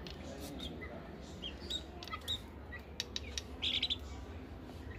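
Guinea fowl giving short, high chirping calls at scattered moments, with a quick run of brighter calls and a few sharp clicks about three to four seconds in.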